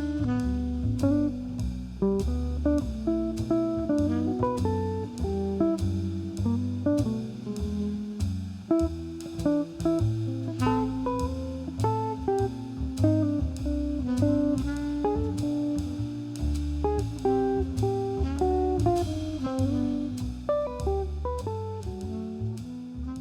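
Background music: an instrumental track with plucked guitar, bass and a light drum beat, fading out at the very end.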